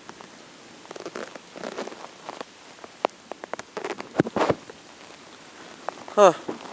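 Raindrops tapping irregularly close to the microphone in light rain, with a cluster of louder knocks about four seconds in. Near the end comes a short squeak-like sound that falls steeply in pitch.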